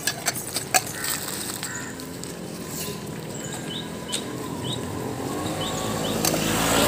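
Steel feeding bowls clinking a few times in the first second as cattle eat from them. A few short rising chirps from small birds follow, and a rush of noise swells near the end.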